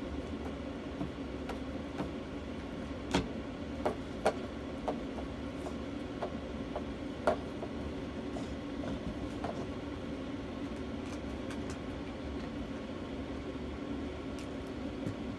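Steady mechanical hum, with a dozen scattered light clicks and knocks, the sharpest about three, four and seven seconds in.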